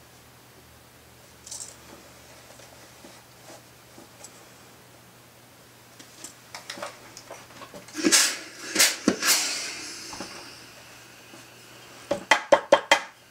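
Denim jeans being handled and folded on a padded board, with fabric rustling and a few light clicks from a sliding plastic sewing gauge. There is a louder rustle about eight seconds in, and a quick run of about six sharp taps near the end.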